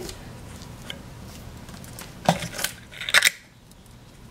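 Plastic clicks and scraping as a Play-Doh can is pulled out of the neck socket of a plastic Hulk toy figure, the loudest a short rattle just after three seconds in.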